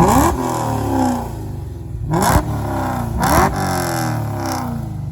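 Supercharged LSA V8 of a VF Commodore GTS blipped three times from idle through its exhaust, each rev rising quickly and falling back to idle.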